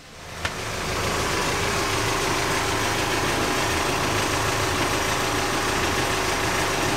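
Lagoon 42 catamaran's inboard diesel engine idling steadily, heard through its open engine-compartment hatch.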